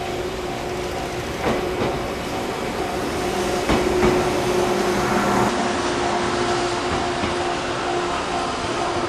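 JR KuMoYa 143 service electric car running past, its wheels knocking over rail joints a couple of times, while a level-crossing alarm rings in a steady repeating pattern.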